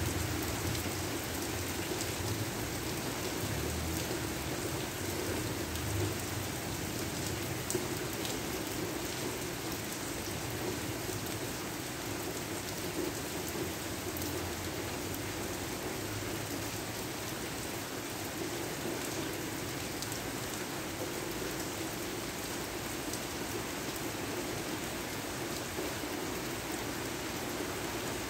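Steady rain falling, with the ticks of single drops heard through the hiss. A low rumble in the first few seconds fades away.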